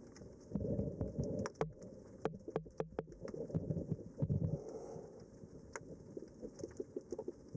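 Underwater sound heard through a submerged camera: low rumbles of moving water that swell about half a second in and again around three and a half seconds in, with many scattered sharp clicks and crackles throughout.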